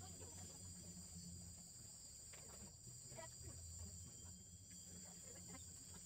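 Faint, steady high-pitched insect chorus, crickets or similar, under a low hum, with a few scattered faint ticks.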